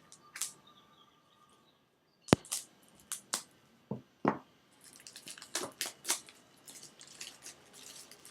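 A tarot deck's cardboard box and packaging being opened and handled: a sharp snap about two seconds in, a few more clicks, then a steady run of crinkling and rustling.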